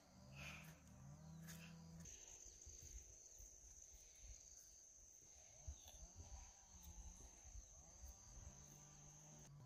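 Near silence outdoors: a faint, steady, high-pitched insect trill starts about two seconds in and stops near the end, with faint low sounds underneath.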